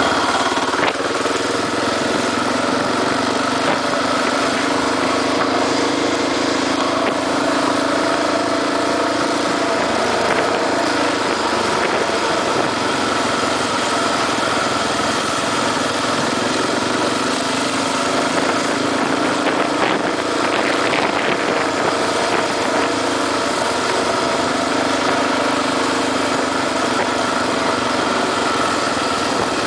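Honda XR650R single-cylinder motorcycle engine running at town riding speed, its note dropping a little about ten seconds in and climbing back around twenty seconds, over a steady rush of wind and road noise.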